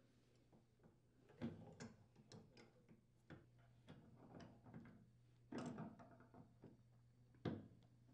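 Faint, irregular clicks and scrapes of tongue-and-groove pliers handled and clamped onto a plastic washer leveling leg, turning it to tighten it into the base. The clearest clicks come about a second and a half in and again a little past halfway.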